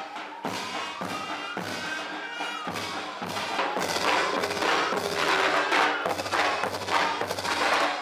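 Marching Ottoman-style mehter band: drums beating about two strokes a second under a shrill, reedy wind melody. A siren wails slowly up and down through it.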